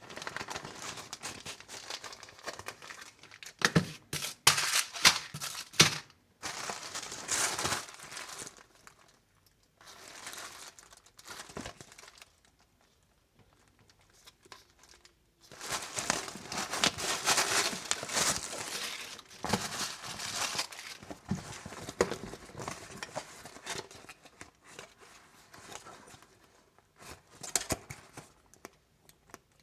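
Packaging crinkling and tearing as it is handled and opened, in irregular bursts with a few sharp knocks about four to six seconds in and a quiet pause of a few seconds around the middle.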